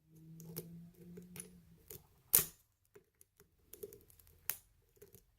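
Lock picks working in a pin-tumbler lock: scattered small metallic clicks and taps from the pick and tension wrench, the sharpest about two seconds in, with a faint low hum under the first couple of seconds.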